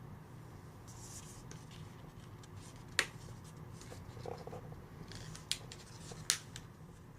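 Handling of a phone box's packaging and accessories: a few sharp plastic clicks, the loudest about three seconds in, with soft rustles between.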